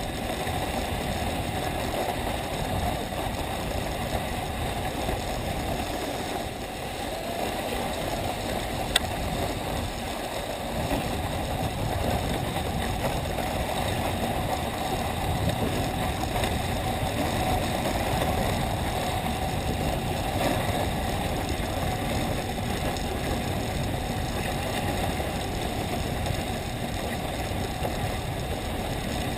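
Steady rumble and hiss of a sled sliding over packed snow while a T-bar lift tows it uphill, with a single sharp click about nine seconds in.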